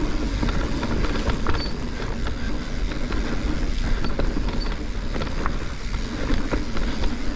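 Mountain bike ridden down a dirt trail: a steady rush of tyre and air noise with frequent short knocks and rattles as it goes over bumps and rocks.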